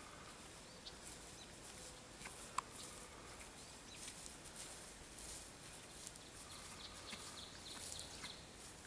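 Faint swishing footsteps through grass with rustling, growing more frequent from about halfway in, over faint scattered bird chirps.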